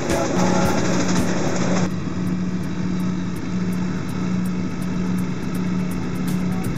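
Tractor engine running steadily while it tows a Gregoire grape harvester working a vine row, with a regular clatter of clicks over the engine hum. The sound changes abruptly about two seconds in.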